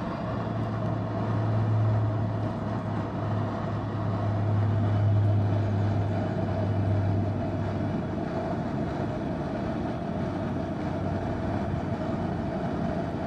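Propane jet burner running steadily under a cast-iron pot of molten lead, with a low hum that fades out about two-thirds of the way through.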